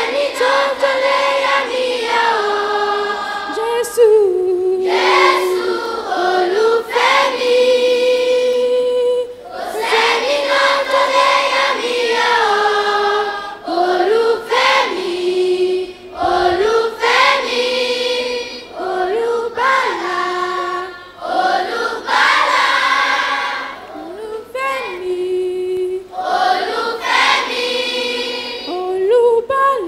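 A children's choir singing, in sung phrases a few seconds long with brief pauses between them.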